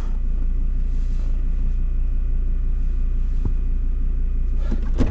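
Ford Ranger's engine running at low revs, a steady low rumble heard inside the cab, with a few light knocks near the end.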